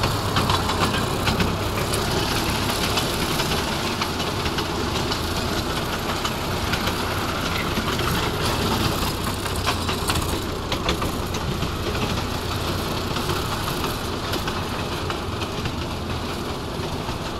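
Ride-on miniature railway train running along its track: a steady low mechanical hum with the wheels clicking now and then over the rail joints.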